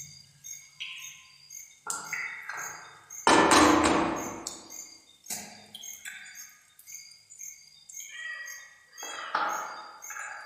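Raw eggs being cracked and dropped into a frying pan: a few sharp knocks, the loudest about three seconds in.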